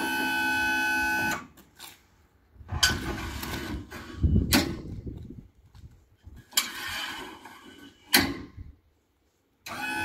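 Background music cuts out after about a second, giving way to the handling of an InnoLIFT electric straddle stacker: four sharp metal clacks and knocks, with scraping and rustling between them. The music returns near the end.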